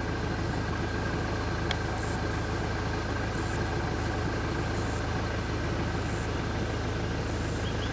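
A van engine idling steadily, heard from inside the vehicle, with a faint high chirping of birds or insects.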